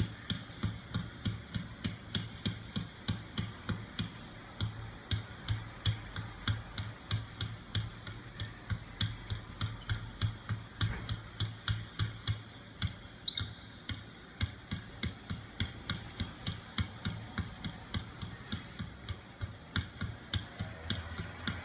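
Basketball dribbled rapidly and continuously on a wooden gym floor, a sharp bounce about three times a second, over a steady low hum.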